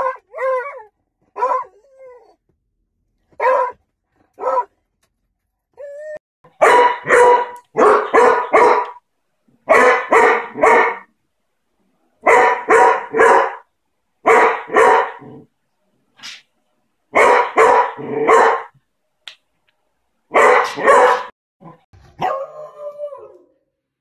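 Beagle barking. A few short, spaced barks come first, then a long run of loud barks in quick bunches of three or four, about every second and a half. Near the end there is one drawn-out call that falls in pitch.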